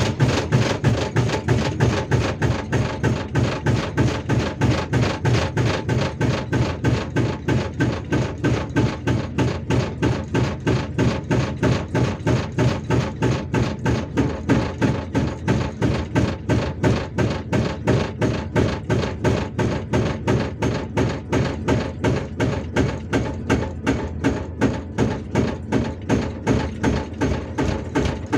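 Hydraulic breaker hammer on a Hyundai R480LC-9S excavator, pounding rock with a rapid, steady run of blows, several a second, that does not stop, over the machine's low engine hum.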